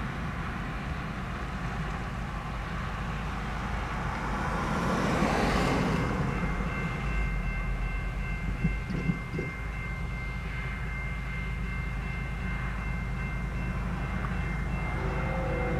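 A car passes over the crossing about five seconds in, over a steady low rumble. About seven seconds in, the railroad crossing's warning bell starts ringing steadily as the signals activate. Near the end, the approaching locomotive's horn begins to sound in the distance.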